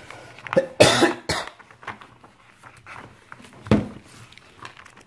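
Paper pages of a softcover activity book being flipped and rustled by hand, with a short loud burst about a second in and a dull thump later on.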